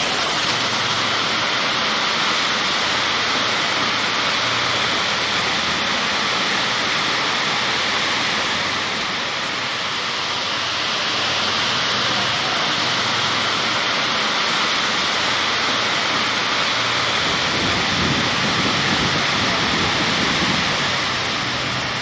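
Tall, narrow waterfall plunging into a pool below: a steady rush of falling and splashing water.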